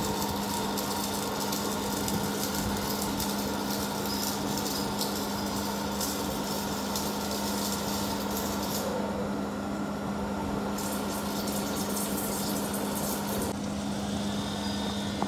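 DK7735 wire-cut EDM machine running mid-cut: a steady hum with a high hissing layer over it. The hiss drops out for about two seconds past the middle, returns, then stops again near the end.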